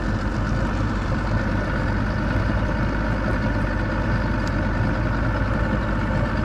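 Boat engine idling steadily with an even low hum.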